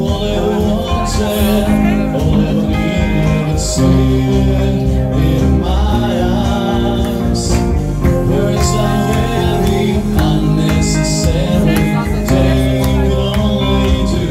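Live duo performing through a PA: a man sings over an acoustic guitar and an electric guitar.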